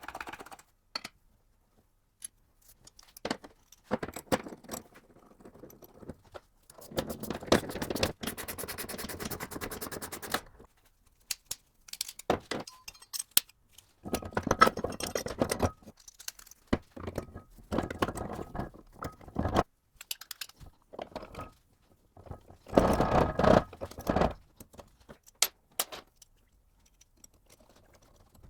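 Metal gearbox parts and hand tools being handled: clinks, sharp clicks and scraping in irregular bursts, with three longer stretches of scraping or rubbing.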